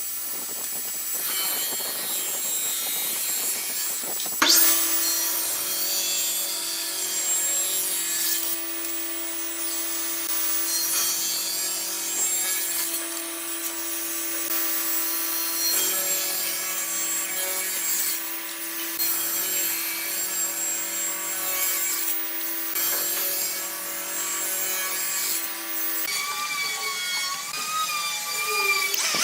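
Wood lathe running while a turning tool scrapes and cuts the spinning wood. A steady motor hum sets in with a sharp click about four seconds in and drops away near the end.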